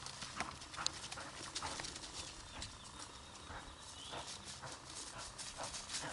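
A hunting dog moving quickly over ground cover with a rhythmic patter of footfalls, while carrying a caught bird back to the handler.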